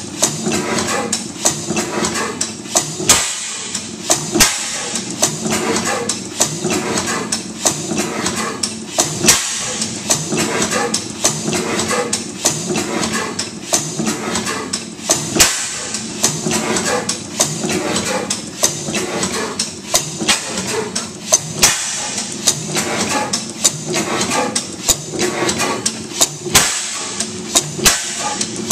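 15 HP St. Mary's sideshaft hit-and-miss gas engine running: an even clatter of its mechanical valve gear and drop-cam igniter, with a heavier knock every few seconds as it fires between coasting strokes.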